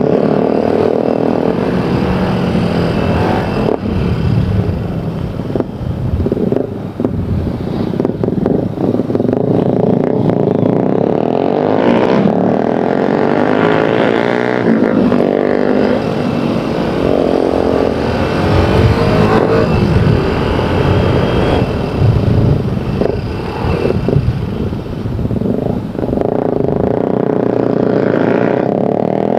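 Motorcycle engine running under way, its pitch climbing and falling repeatedly with throttle and gear changes.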